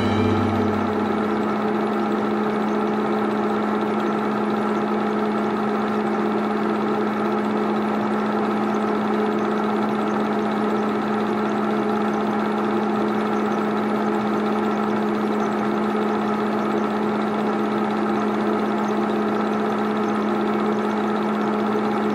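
8mm film projector running steadily: an even motor hum with the whir of the film spooling through.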